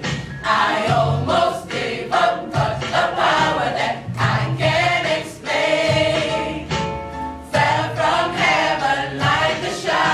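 Youth choir of mixed male and female voices singing together, continuously.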